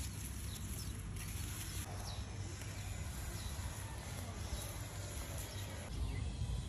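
Outdoor rural ambience: a steady high insect hiss with a few faint chirps, over a low rumble.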